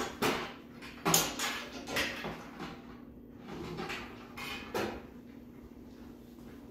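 Sharp knocks and clanks of a metal pail and its lifting-trolley pail gripper being handled at the rim, a handful of them in the first five seconds with the loudest just after a second in, over a steady low hum.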